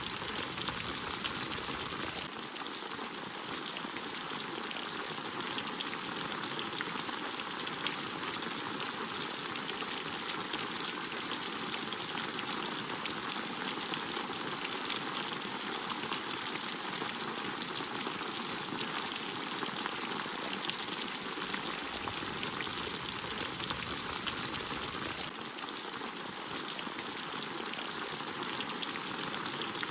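Steady rain falling: an even wash of noise with many small drop impacts running through it.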